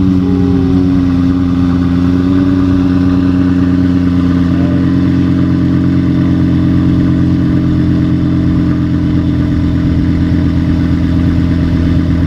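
Lexus LFA's 4.8-litre V10 idling just after start-up, heard from behind at the triple exhaust tips. The idle eases down a little in pitch over the first couple of seconds, then holds a steady, loud note.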